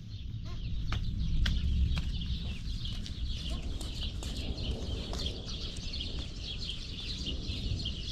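Outdoor ambience: a dense chorus of small birds chirping, over a low rumble, with a few footsteps on concrete in the first couple of seconds.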